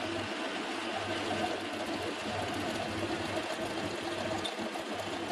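Metal lathe running with a steady hum, its spindle turning a metal bar against a cutting tool in the tool post.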